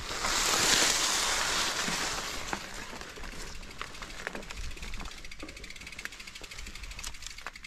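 Mountain bike coasting on a dirt trail: a loud rush of noise in the first two seconds fades away, then the rear hub's freewheel ticks rapidly and evenly, with scattered clicks and knocks from the bike.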